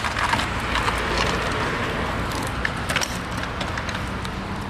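Stunt scooter wheels rolling on rough asphalt: a steady gritty rolling noise with scattered clicks and knocks.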